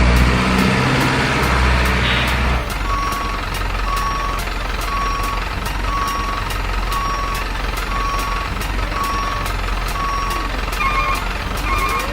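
Reversing-alarm beeps from an RC truck, about one short beep a second over a steady low hum. An engine sound runs for the first couple of seconds before the beeping starts.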